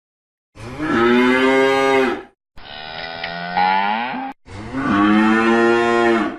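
A cow mooing three times in quick succession, each moo about two seconds long; the middle one rises in pitch near its end.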